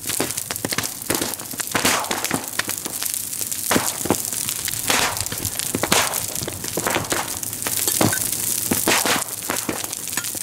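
Large bonfire of a burning wooden royal boat crackling over a steady rushing hiss, with irregular loud pops and cracks as the burning wood splits.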